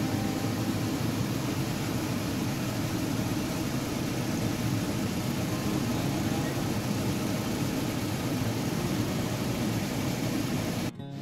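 Steady rumbling noise from the stovetop as braising liquid boils hard in an enamelled cast-iron skillet on a gas burner. It drops out for a moment near the end.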